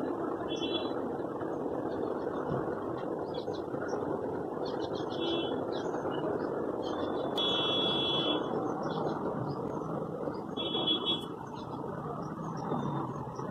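Steady rushing background noise of the kind distant traffic makes, with brief high chirps now and then.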